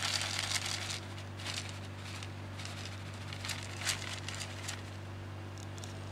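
Short rustles and crackles from handling and movement, densest in the first second and again around four seconds in, over a steady low hum.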